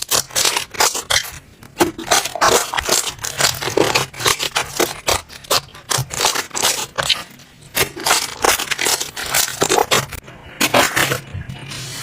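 Slime being squeezed and poked by hand, making a rapid, irregular run of crackling clicks and pops.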